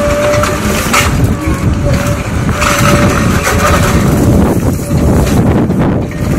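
Tracked demolition excavator working a rubble heap with its grapple: the diesel engine and hydraulics run steadily with a whine that comes and goes. Broken masonry crunches and clatters as the grapple bites into the pile, loudest about a second in and around three seconds.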